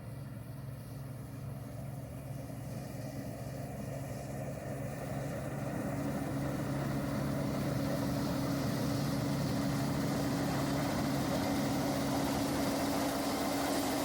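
1976 Allis-Chalmers Gleaner F combine running, a steady engine drone mixed with the rush of its machinery, growing louder over the first half and then holding steady.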